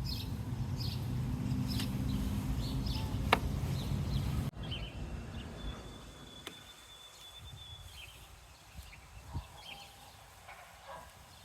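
Birds chirping in short high calls over a steady low rumble; the rumble stops suddenly about four and a half seconds in, leaving the chirps and a long, steady high note.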